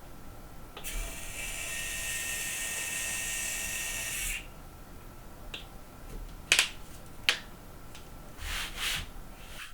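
Small electric motor built into the M-one mechanical keyboard running for about three and a half seconds to tilt the board to a new typing angle, a steady whine with a few high tones over a hiss. Afterwards come two sharp clicks and a couple of brief rustles.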